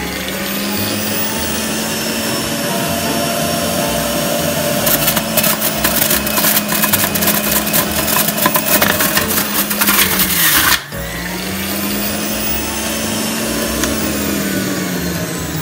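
Breville centrifugal juicer running with a steady motor whine as carrots are shredded, with a dense rasping of carrot against the spinning cutter disc for several seconds in the middle that stops abruptly. Near the end the motor is switched off and its pitch falls as it spins down.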